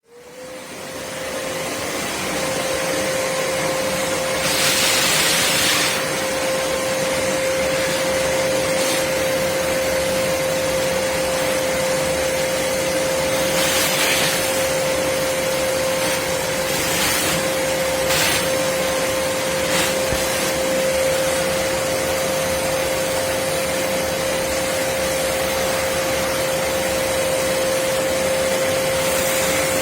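Black+Decker BXVC30XTDE 1600 W wet/dry vacuum motor spinning up and then running steadily with a constant whine, with brief surges of rushing hiss a few times as the airflow changes at the nozzle.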